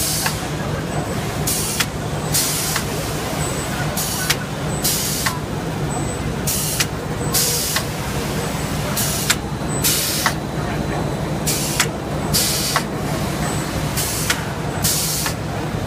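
Semi-automatic cookie forming machine running: a steady low hum with short, sharp hisses in pairs about every two and a half seconds as it cycles through its forming strokes.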